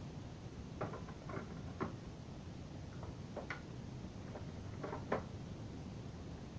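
Short plastic clicks and knocks, about six of them with the loudest about five seconds in, from hands handling an opened Avant UPS's plastic housing as its battery is set into it.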